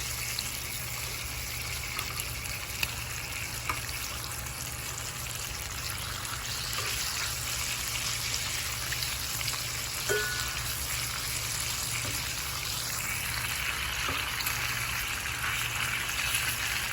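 Food sizzling steadily in a hot pan, with a few faint light clicks.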